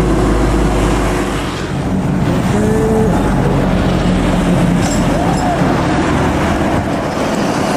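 Highway traffic passing close by: heavy trucks, a bus and motorcycles with their engines running. A steady low engine hum gives way about a second and a half in to busier, noisier traffic sound.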